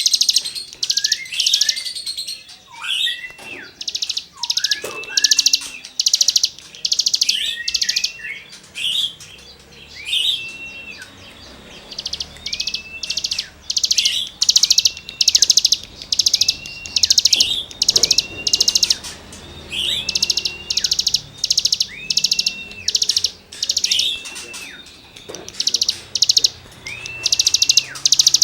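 Cigun songbird singing continuously: harsh buzzy rasping notes alternate with clear whistles that rise, hold level and drop, a note roughly every second.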